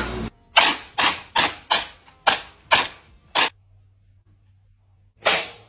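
Cat sneezing in a quick run of about seven sharp sneezes, then one more after a short pause.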